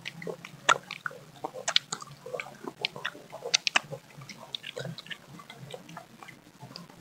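Close-up crunchy biting and chewing of firm mango slices dipped in chili sauce: many sharp, irregular crunches.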